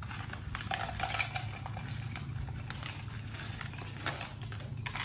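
Plastic drink cups and a plastic bottle being handled, giving many small clicks, clatters and crinkles. A steady low hum runs underneath.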